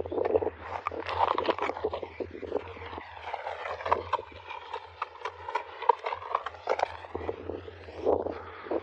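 Irregular scraping, rustling and short knocks as a hooked snakehead is hauled out of the water through grass and onto a dirt bank.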